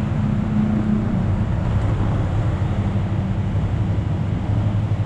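A motor vehicle engine running with a steady low rumble.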